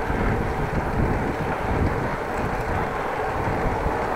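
Wind buffeting an action camera's microphone on a moving bicycle, over a steady rush of road noise.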